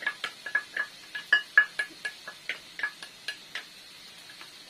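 Quick clinking of a small stainless steel bowl, about four ringing knocks a second, as chopped onion is knocked out of it into a frying pan; the knocking stops a little after halfway.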